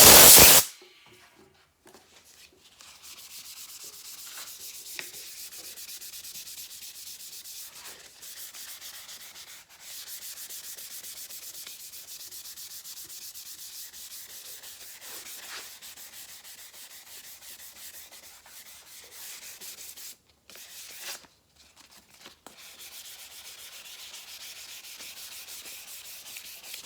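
Hand sanding of the clear coat on a painted Norton Commando cover with fine-grit sandpaper, rapid rasping strokes that run steadily with a few short pauses, cutting back orange peel. It opens with a brief, loud burst of noise.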